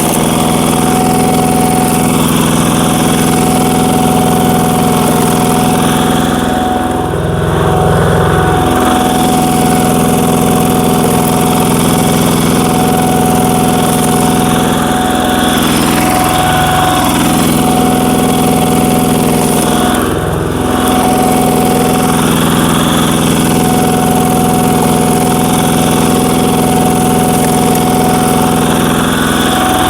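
Walking tractor's single-cylinder diesel engine running at full throttle while driving a screw log splitter; about four times its note sags briefly and recovers as the screw takes the load of a log, the longest dip about seven seconds in.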